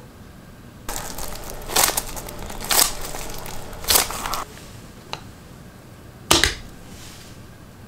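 Hands shifting a plastic-wrapped cordless drill in its clamp: crinkling film for a few seconds with three sharp clicks among it. Then a single light click and, near the end, a louder quick double click as the angle gauge is set against the drill's bit.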